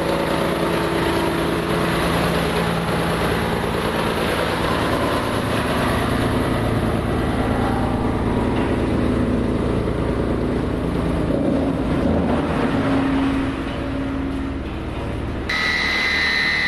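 SHD1400-600 wood chipper running, a heavy machine drone with steady engine tones that shift in pitch. Near the end the sound changes abruptly to another machine note carrying a steady high tone.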